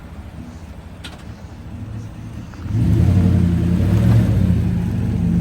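Lifted Chevrolet Silverado pickup's engine running, then revving up loudly about three seconds in and holding the higher, louder note.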